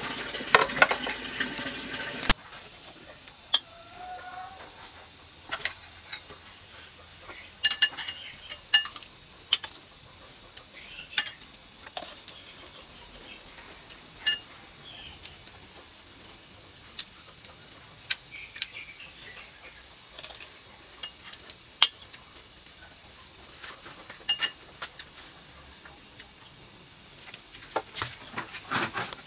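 A steamer venting steam with the clatter of its metal pot and lid for the first two seconds. After that come eating sounds: chewing and bites, with scattered sharp clinks of utensils against dishes.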